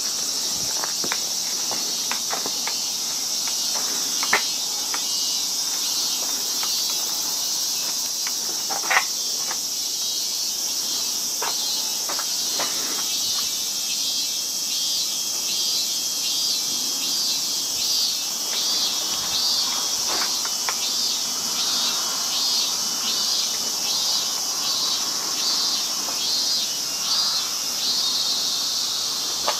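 Insects calling steadily at a high pitch. From about halfway they are joined by a pulsing insect call repeating roughly twice a second. Scattered taps and clicks sound in the first half, the sharpest about nine seconds in.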